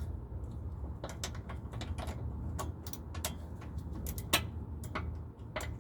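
Irregular sharp metallic clicks, a few a second, starting about a second in: a hand ratchet driving in the 12 mm brake line bracket bolt.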